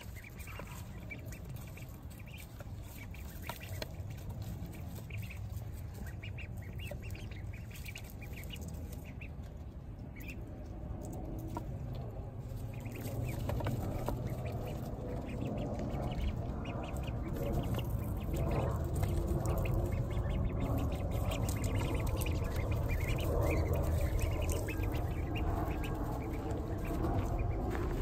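A flock of young Pekin, golden and Blue Swedish ducklings peeping and calling as they waddle and forage, with scratching and rustling in the wood shavings underfoot. It grows louder about halfway through.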